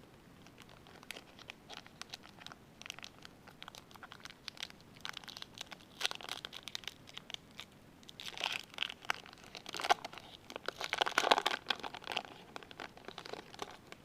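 Crinkling and rustling of trading cards and their packaging being handled, with scattered clicks, loudest in two spells in the second half.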